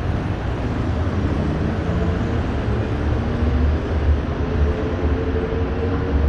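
Road traffic with a strong low rumble and a vehicle engine's drone, which grows stronger in the second half.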